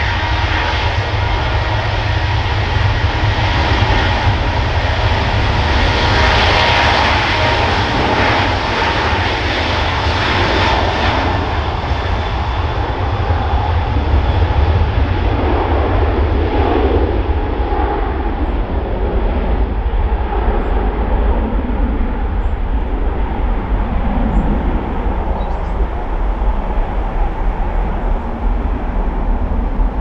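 Airliner's engines running as the aircraft passes, their high whine and rush fading after about ten seconds as it moves away. Heavy wind buffets the microphone throughout as a deep rumble.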